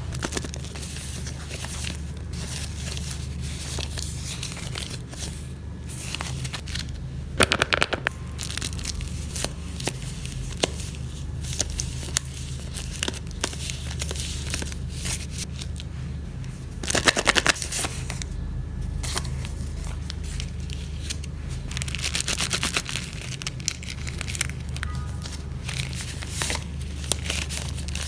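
Handmade paper surprise packets being handled: paper crinkling and rustling, with a few louder bursts of crackling and tearing, over a steady low hum.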